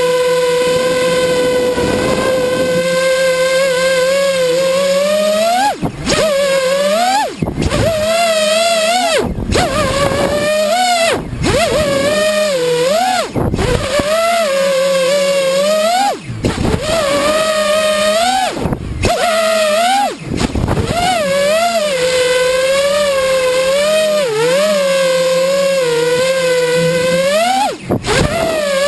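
FPV quadcopter's electric motors and propellers whining, the pitch swooping up and down with the throttle. About nine times the whine briefly drops out as the throttle is cut, as it is for flips and rolls.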